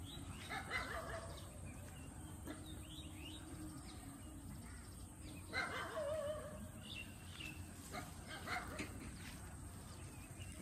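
An animal calling in short bursts a few times, the loudest about five and a half seconds in, over a steady low rumble.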